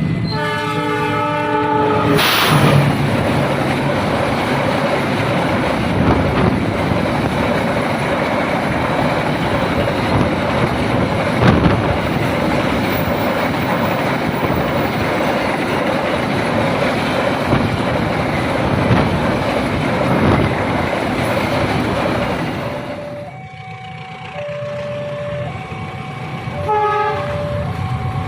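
Level-crossing warning alarm sounding its alternating electronic tones, then a train passing the crossing with a loud rumble and wheel clatter for about twenty seconds. The alarm's alternating tones come through again once the train has gone by.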